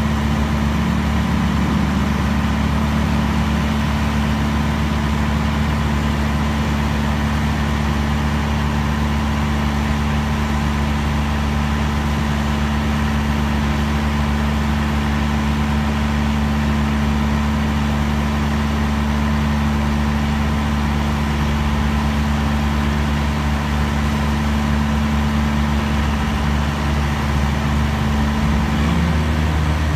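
John Deere tractor's diesel engine running at a steady speed while its tipping trailer is raised to unload, with other tractor engines running close by. The pitch holds even throughout, changing slightly near the end.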